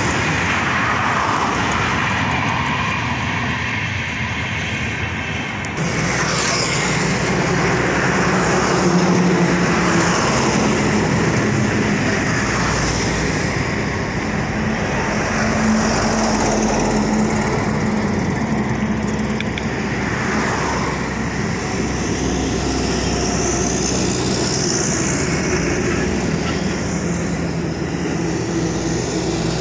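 Motorcycle riding at highway speed: its engine hums steadily under road and wind noise. The sound grows louder and deeper about six seconds in.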